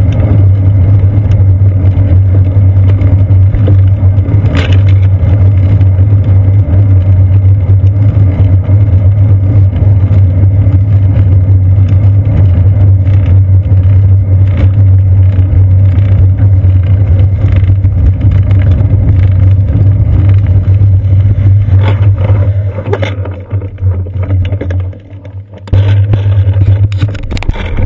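Steady, loud low rumble of wind and road vibration on a seat-post-mounted camera of a moving bicycle, with a few small knocks. It eases and wavers near the end, dips briefly, then picks back up.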